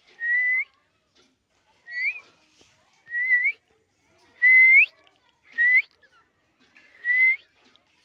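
Alexandrine parakeet giving six short whistled calls about a second apart, each rising in pitch at its end.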